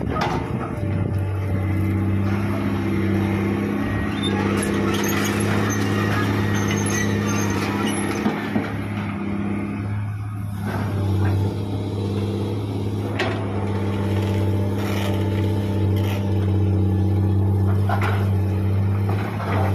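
Komatsu PC200 hydraulic excavator's diesel engine running steadily under load while the bucket digs gravel, its note dipping briefly about halfway through. Stones knock and grate against the bucket a few times.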